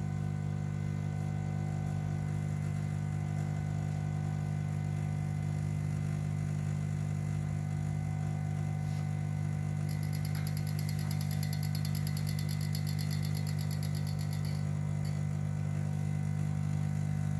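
Espresso machine's vibratory pump humming steadily while an espresso shot extracts under pressure. The hum comes from a Quick Mill Rubino E61 machine.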